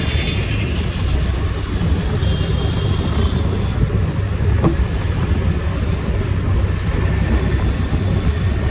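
Steady road noise from the back seat of a moving scooter: engine, tyres and wind, with passing traffic. A single short click comes about four and a half seconds in.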